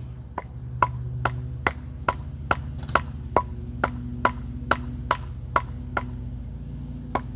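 Rhythmic sharp knocks of wood being struck, about two a second and very evenly spaced, like chopping or hacking at wood, over a steady low rumble.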